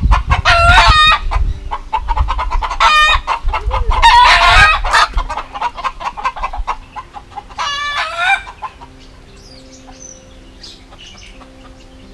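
Chickens clucking, with four loud drawn-out calls, the last one about eight seconds in; rooster crows. After about nine seconds only faint background sound remains.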